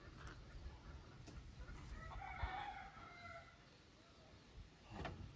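A rooster crowing once, faint and distant, about two seconds in, lasting a little over a second.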